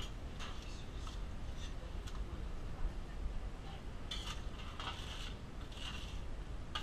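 Light clatter of kitchen utensils and pans, scattered faint clicks and a couple of short scraping bursts, over a steady low hum.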